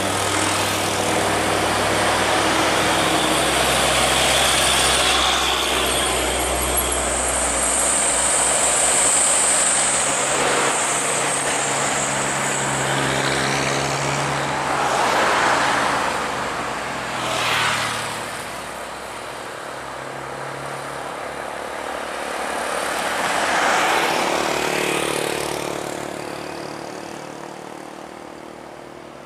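Highway traffic on a climb: truck engines drone steadily under load while vehicles and motorcycles pass one after another. Several louder passes swell and fade in the second half, and the traffic dies down near the end.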